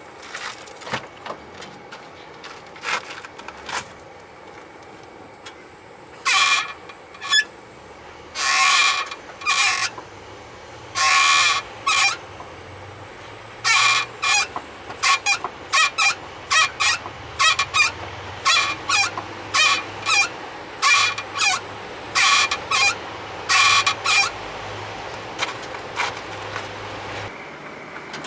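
Mitsubishi Lancer X disc brakes squealing: dozens of short, loud, high squeals, some about a second long, beginning about six seconds in and coming more and more often. A faint low hum runs underneath. The owner says the squeal comes mainly when the brakes are hot after a drive, while braking itself stays normal.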